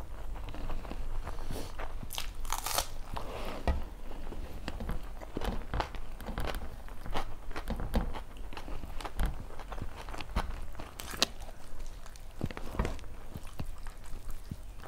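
A person biting and chewing food, a string of irregular crunches and clicks.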